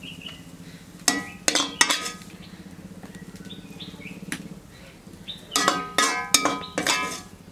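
Metal spoon clinking and scraping against a ceramic plate as food is spread on it. There is a quick run of clinks about a second in, a single one near the middle, and another cluster near the end.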